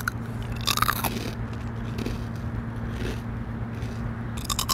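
Crunchy bites into a kkul kkwabaegi honey-twist snack, close to the microphone: a crisp crunch about a second in and another near the end, with quieter chewing crackles between.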